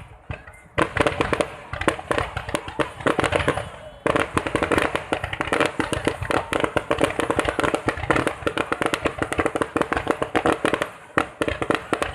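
Fireworks going off in a dense, rapid run of sharp pops and bangs, nearly continuous after a short lull at the start.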